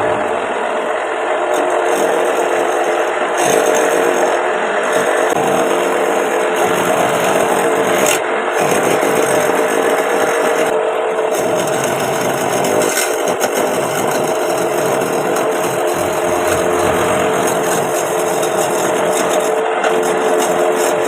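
Homemade wood lathe running, with a turning tool scraping and cutting the spinning wood: a continuous rasping over a steady motor hum.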